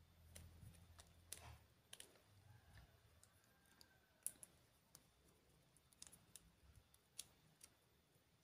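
Faint, scattered small clicks of a screwdriver working the terminal screws of a two-pin electrical plug, with one sharper click a little past the middle.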